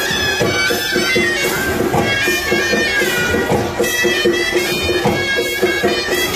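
Chhau dance music: reed pipes playing a wavering, nasal melody over a steady drone, with drum strokes throughout.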